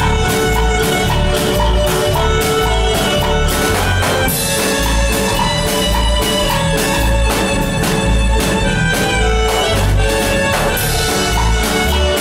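A Guatemalan marimba orquesta playing live dance music: several mallet players on the marimba over a drum kit and a bass line, with a steady beat.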